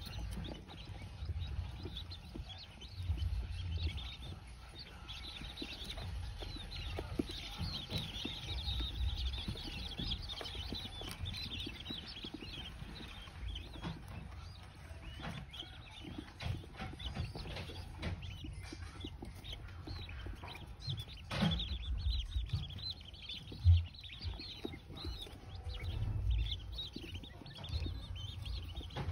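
A flock of young blue-breasted quail peeping softly in high, short calls, with light taps and rustles from pecking and scratching in wood-shaving bedding. One sharp knock sounds about three quarters of the way through.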